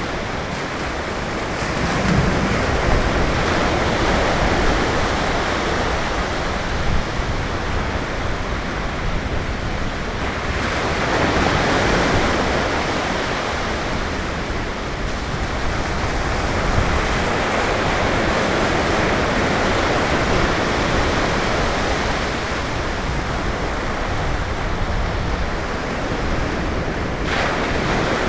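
Atlantic surf breaking on a beach in a continuous rushing wash, swelling as waves break about two seconds in, around eleven seconds in, and again near the end.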